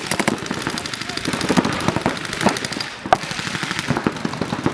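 Paintball markers firing in rapid, irregular strings of sharp shots.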